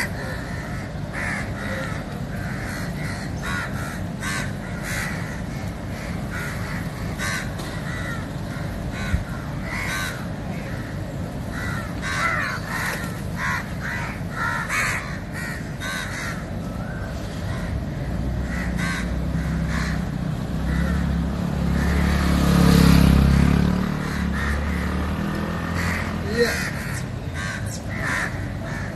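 A flock of crows cawing repeatedly while they feed on the ground. In the second half a low rumble swells up, becomes the loudest sound and fades away again.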